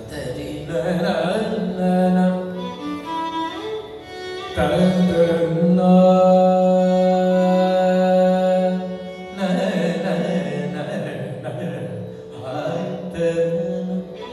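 Male Carnatic vocalist singing in Mohana raga, with a violin following his melodic line. His phrases glide between notes, and about four and a half seconds in he holds one long steady note for about five seconds.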